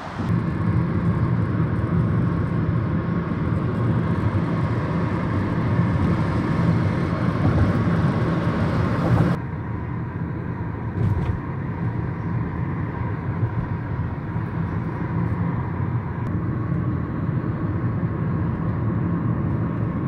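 Wind rushing over a phone microphone outdoors. About nine seconds in, a sudden cut switches to a car's cabin: a steady, duller hum of engine and tyre road noise while driving.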